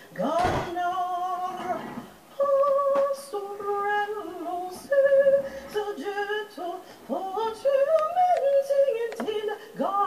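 A woman singing alone, unaccompanied, in Italian, holding long notes one after another with short breaths between phrases.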